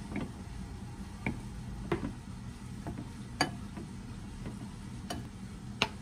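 Scattered light clicks and taps of kitchen utensils against dishes, about six over a few seconds, over a steady low hum.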